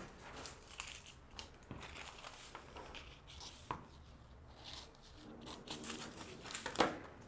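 Faint rustling and crinkling of paper pattern pieces being handled and slid across a cutting mat, with scissors cutting through the paper.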